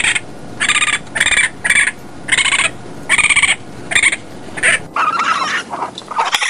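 Young raccoon calling: a series of about ten short, pitched calls, roughly two a second, the last few lower in pitch.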